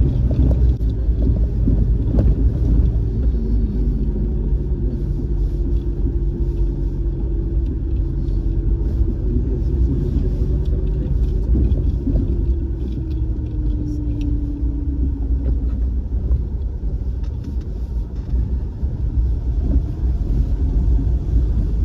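A car driving on a rough mountain road: a steady low engine and road rumble, with an engine note that holds steady and then drops away about fifteen seconds in.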